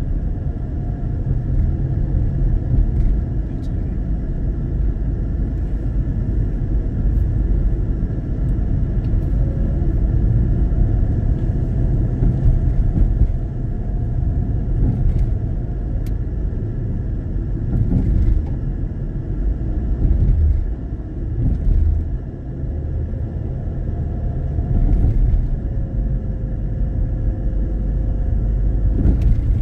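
Steady low rumble of road and engine noise heard from inside a moving car, with a few faint clicks.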